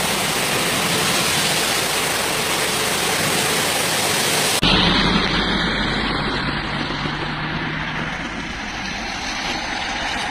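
Strong wind and heavy rain of a severe storm, a steady dense hiss. About four and a half seconds in it cuts abruptly to a second recording with deeper low noise.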